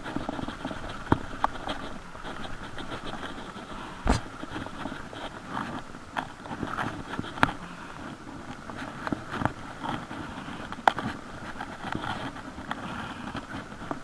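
Close handling noise from a baitcasting rod and reel held against the microphone: continuous scraping and rustling, with several sharp knocks spaced a few seconds apart.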